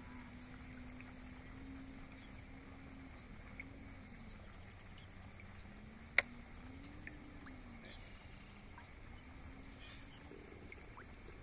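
Quiet pond-side ambience: a low hum that slowly wavers up and down in pitch, faint high steady tones, and one sharp click about six seconds in.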